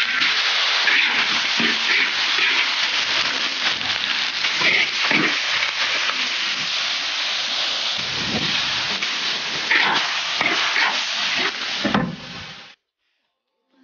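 Chicken pieces sizzling hard in hot oil in a large wood-fired wok, stirred with a spatula that scrapes and knocks against the pan. The frying sound cuts off suddenly near the end.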